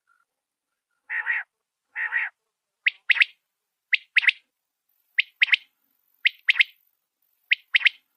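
Quail calling: two rough, lower calls about a second apart, then a sharp call of two or three quick notes repeated about once a second.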